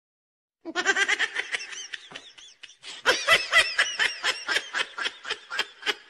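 Laughter in a quick run of short 'ha' sounds, starting just under a second in and running in two bouts with a brief pause between them.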